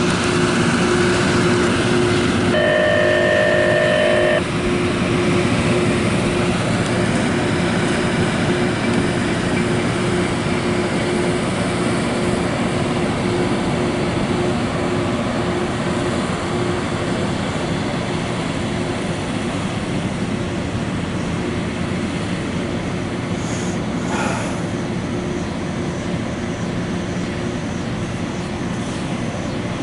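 A vehicle running steadily at speed: a constant hum over a wide rumble with no change in pace. About two and a half seconds in, a separate high tone with overtones sounds for about two seconds.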